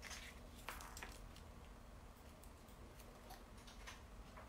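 Near silence: faint ticks and a click of paper die-cuts and tape being handled, over a low steady room hum.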